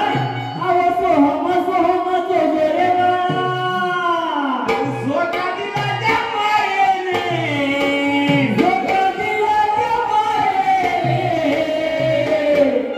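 A singer holding long, wavering notes of a Marathi folk song, accompanied by repeated low beats on a hand drum.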